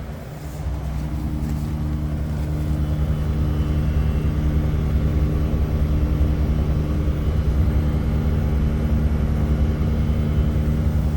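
Daikin ERLA 11 kW air-source heat pump outdoor unit giving off a loud, steady buzzing hum. It dips in level for about the first second, then holds steady.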